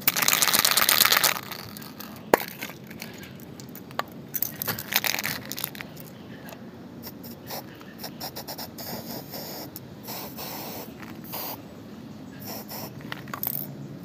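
Aerosol spray-paint can shaken hard, its mixing ball rattling rapidly for about a second at the start and again briefly a few seconds later. Later come short hisses of paint being sprayed.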